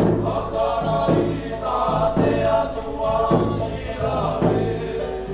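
Cook Islands string band: ukuleles and an acoustic guitar strumming while the group sings in harmony, with a bass drum beat about once a second.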